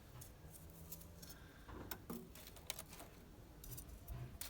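Small pieces of kindling wood clicking and knocking against each other as they are stacked into a teepee; a few scattered light taps.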